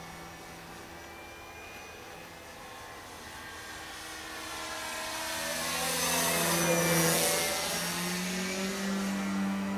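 Electric motor and propeller of a 65-inch U Can Do 3D RC airplane running on a 6S battery, whining as the plane flies overhead. It grows louder to a peak about seven seconds in, with the pitch bending down as the plane passes close, then eases off a little.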